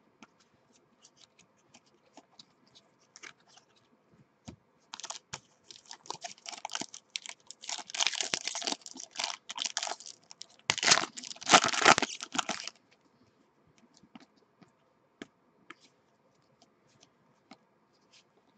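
A trading-card pack's wrapper being torn open and crinkled by hand, in two spells about five and eleven seconds in. Light ticks of handling come before and after.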